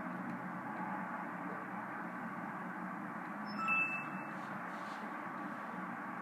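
A short, high electronic chime from the Acer Aspire One D250 netbook as it shuts down, a little past halfway, over a steady background hiss.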